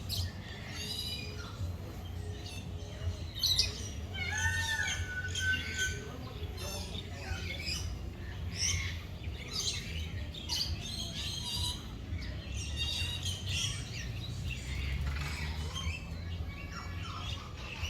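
Many aviary birds chirping and squawking over one another, with a clear whistled call about four seconds in, over a steady low rumble.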